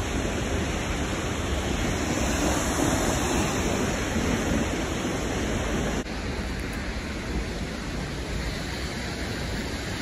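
Steady rushing roar of a waterfall. About six seconds in it drops suddenly to a quieter, duller level and carries on.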